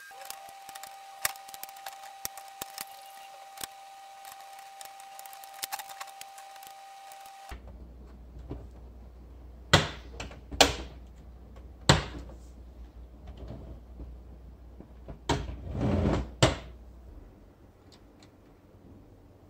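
Plastic LEGO Technic parts clicking and knocking as pins and plates are pressed together by hand. Many small clicks over a faint steady tone at first, then a few sharp knocks and a short burst of clattering near the end.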